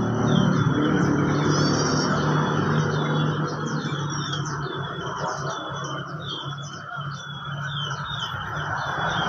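Many small birds chirping and trilling at once in quick, overlapping calls, over a steady low engine hum that fades after about four seconds.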